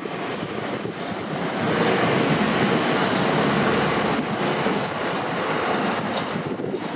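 A train running past at a level crossing: the rumble of its wheels on the rails swells about two seconds in and eases off toward the end.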